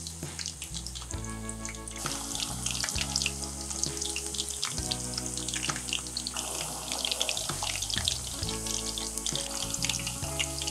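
Kakiage fritters of new burdock and sakura shrimp deep-frying in a pan of oil: a dense, steady crackle and sizzle of bubbling oil.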